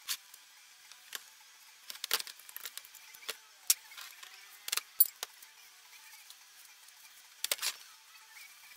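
Metal parts and tools clinking as they are handled: a dozen or so sharp, irregular clicks, the loudest near the middle.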